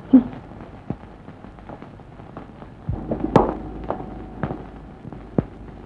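A small metal cross on a chain drops onto a tiled floor with a sharp clink about three seconds in, ringing briefly. Scattered sharp clicks and crackles sound throughout.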